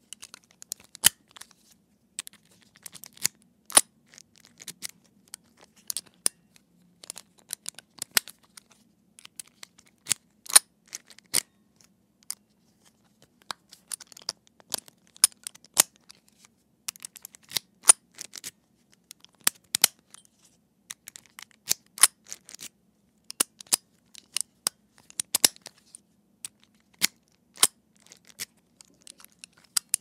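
Metal padlock being locked and unlocked again and again with a key: sharp metallic clicks and rattles in irregular clusters, several every couple of seconds.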